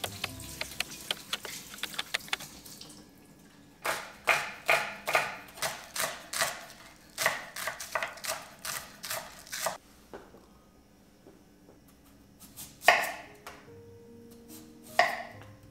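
Kitchen knife chopping on a cutting board: a quick run of light taps at first, then a steady run of firmer chops, two or three a second, and finally a few single chops.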